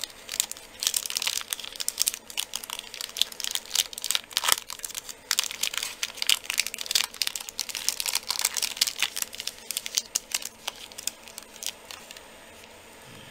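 Clear plastic wrapper of a block of polymer clay being unfolded and peeled open by hand, crinkling and crackling in quick irregular rustles that thin out near the end.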